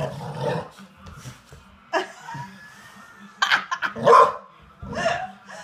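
Two dogs play-fighting, barking and yipping in short separate bursts, the loudest barks coming about three and a half to four seconds in.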